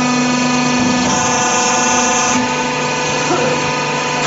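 Sheet-curving press for metal roofing sheets running, a steady machine hum with several held tones from its motor and pump. A hiss joins about a second in and stops about halfway through, as the press works the sheets.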